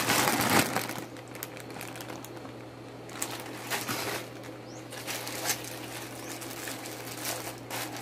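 Plastic shipping pouch and its wrapping crinkling and rustling in the hands as the parcel is handled and opened, loudest in the first second, then in short scattered rustles. A steady low hum runs underneath.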